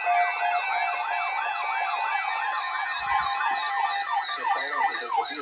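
Several sirens sounding at once, their pitches sweeping rapidly up and down about two to three times a second in a yelp pattern. A lower-pitched sweeping siren joins about four and a half seconds in.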